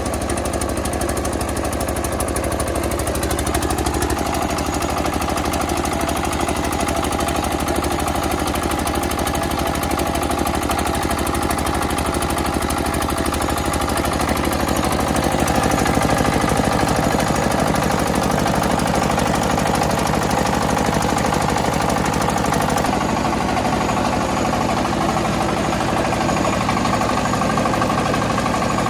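Rice milling machine running steadily: a continuous engine-like drone with a fast, even rattle, its tone shifting a couple of times.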